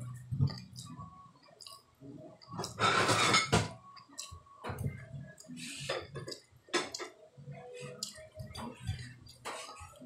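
Eating by hand from ceramic bowls: scattered wet mouth smacks and chewing with light clinks against the dishes, and a louder noisy rustle lasting about a second, about three seconds in.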